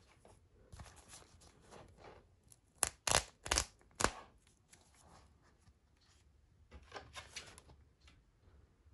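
Thin, crispy grilled fish-cake cracker sheet handled and broken by hand. It crackles at first, then gives four sharp snaps about three to four seconds in as a piece breaks off, and crackles again near the end.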